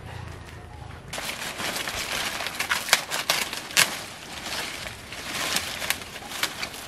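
Dry banana leaves rustling and crackling as they are cut and torn off a banana plant with a knife, starting about a second in, with sharp snaps, the loudest around three and four seconds in.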